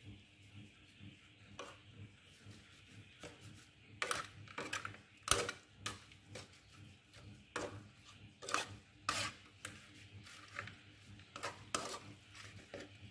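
Spatula scraping and knocking against the pan as saucy chicken pieces and leaves are stirred, in irregular strokes that get louder after a few seconds, over a faint sizzle.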